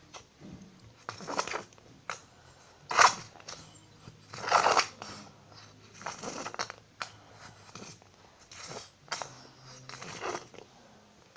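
A plastic bottle of clear glue being squeezed and worked to force out the last of the glue: six or seven short crackling, sputtering rasps at irregular intervals, the loudest near the middle.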